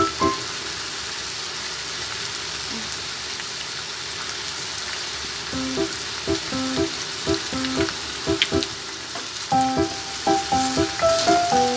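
Chicken pieces sizzling in hot oil in a frying pan, a steady hiss, stirred with a wooden spatula near the end. A light plucked background melody drops out just after the start and comes back about six seconds in.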